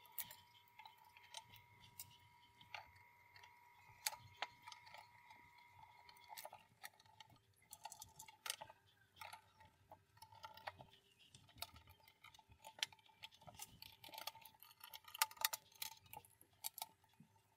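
Faint scattered clicks and taps of the metal dial back plate being handled and fitted onto a Grundig 3160 tube radio's chassis, coming more often in the second half.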